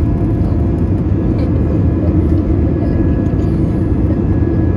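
Cabin noise inside an Airbus A320 under power: a steady, loud rumble of jet engines and airflow, with faint thin whining tones above it.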